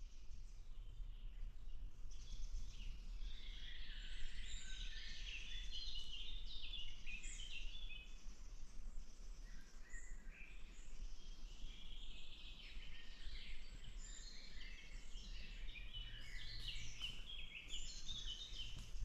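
Woodland songbirds singing, a dense run of quick chirping and trilling notes that eases off briefly in the middle, over a low steady rumble.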